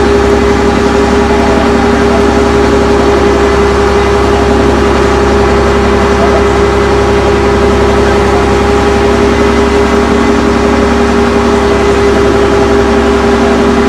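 An engine running steadily at constant speed: a loud, even drone with a steady hum that does not change.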